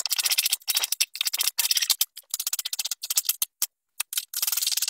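Kitchen knife chopping vegetables (onion and carrot) on a wooden cutting board: a fast run of sharp taps, broken by short pauses, the longest about three and a half seconds in.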